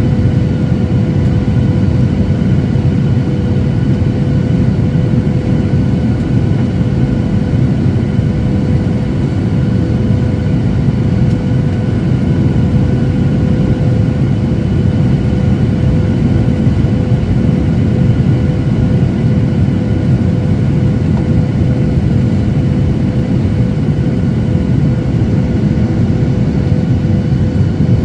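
Airliner jet engine running steadily, heard inside the passenger cabin as a loud, even low rumble with a steady whine held on one pitch.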